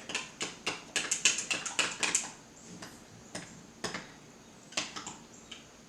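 A spoon stirring yogurt in a plastic cup, clicking and scraping against the sides: a quick run of clicks for about two seconds, then a few scattered ones.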